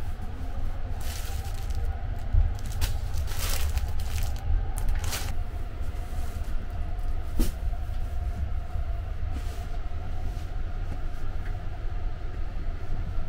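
Steady low rumble of the 285-series Sunrise Izumo sleeper train running, heard from inside the compartment. Bedding rustles as it is handled between about one and five seconds in, with a single click a couple of seconds later.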